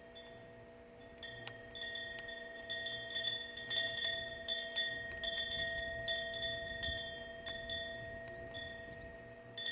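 Metal chimes ringing: irregular strikes about every half second to a second, each re-exciting a set of long, sustained bell-like tones.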